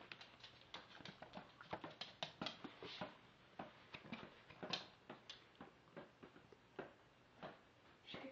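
Faint, irregular taps and clicks, a few each second, from a small chihuahua–shih-tzu puppy playing with mini balloons.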